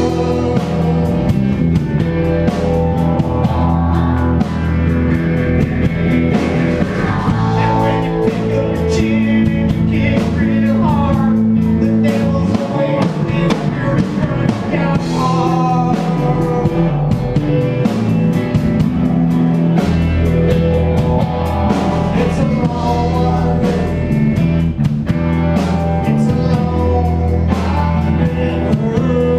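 A live Americana rock band playing: electric guitars over a drum kit, loud and continuous.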